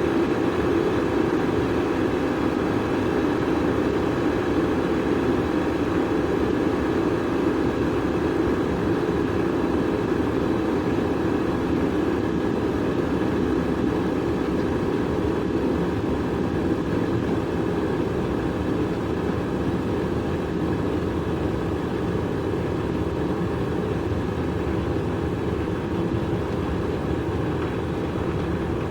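Oursson EK1760M electric kettle heating water: a steady, mostly low-pitched rushing noise of water coming up towards the boil.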